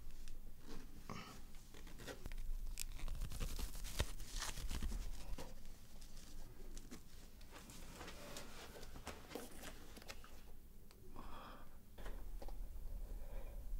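Dress fabric rustling and a zip being worked up by hand, with scattered small clicks and scrapes.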